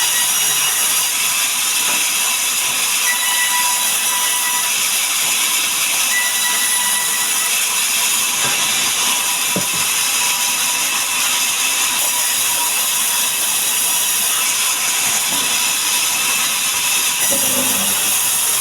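Sawmill saw cutting through a mahogany log, a steady hissing machine noise with faint whining tones, and a single sharp knock about halfway through.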